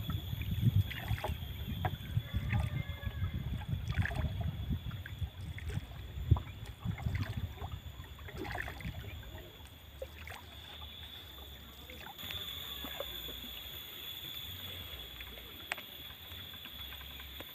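Wooden canoe being paddled across open water: irregular knocks of the paddle and water trickling and sloshing against the hull over a fluctuating low rumble. It settles to a quieter, steadier background about ten seconds in.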